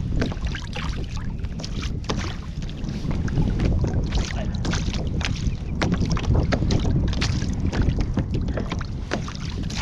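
Wind buffeting the microphone as a low rumble, with small choppy waves slapping and lapping against the kayak's hull in many short splashes.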